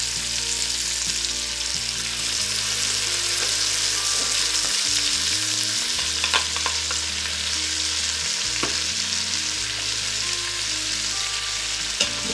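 Sausage, bell peppers and artichoke hearts sizzling steadily in the stainless inner pot of an electric pressure cooker on its sauté setting. They are stirred with a wooden spoon, with a few light knocks.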